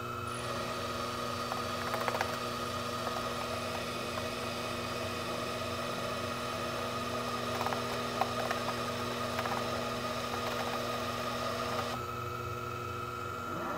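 Sherline CNC chucker lathe taking a turning cut: a steady motor hum and whine with the hiss of the tool cutting the spinning bar. The cut starts just after the opening and stops about a second before the end, with a few light chip clicks along the way.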